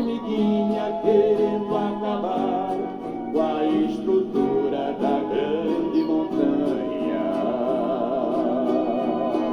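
Two male voices singing a sertanejo guarânia in duet harmony over guitar accompaniment, played back from a vinyl record. Near the end they hold a long note with vibrato.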